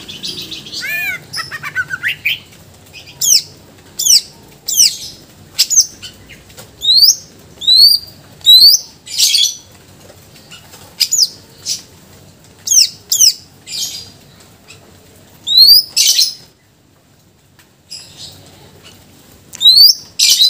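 Male greater green leafbird (cucak ijo) singing in full voice: loud, sharp whistled notes that sweep steeply down in pitch, about one a second, with a quick chattering run near the start and a brief pause a little after the middle. Its song strings together mimicked phrases (isian).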